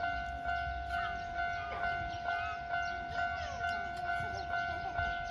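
Japanese railway level crossing alarm ringing its steady "kan-kan" warning, a two-pitch ding repeating a little more than twice a second, signalling that a train is approaching.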